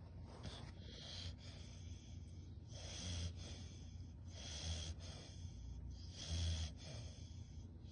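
Dogue de Bordeaux puppy snoring in its sleep: a noisy snore on each breath, repeating about every second and a half to two seconds.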